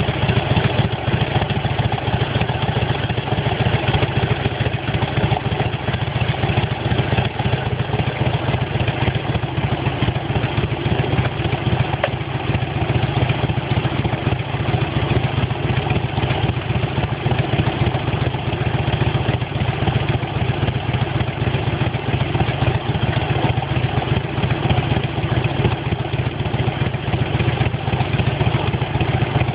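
1993 Harley-Davidson FXSTS's Evolution V-twin engine running steadily, with a single metallic 'kan-kan' clank about ten seconds in. The clank is an abnormal engine noise that comes about once every 30 seconds regardless of engine temperature; its cause is not yet known.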